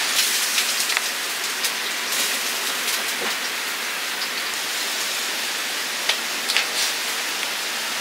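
Food sizzling in hot oil in a wok, a steady hiss with a few light clicks.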